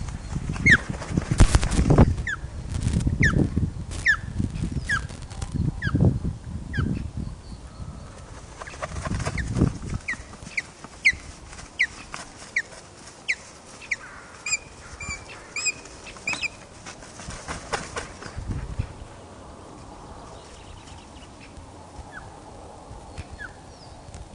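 Ospreys mating on the nest: a long series of short, downward-slurred whistled chirps, about one or two a second, with heavy thuds and buffeting from flapping wings through the first half. Around the middle the calls turn higher and ringing for a few seconds, then fade to a few faint chirps.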